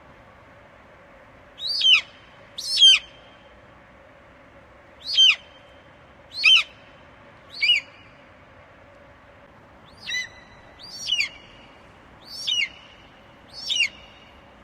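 Eagle calling: nine short, shrill, high-pitched calls, each falling steeply in pitch, given singly or in pairs about one to two and a half seconds apart over a faint steady hiss.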